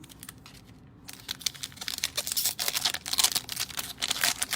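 Cellophane wrapper of a trading card pack crinkling and crackling as it is torn open and the cards are handled; the dense crackle starts about a second in.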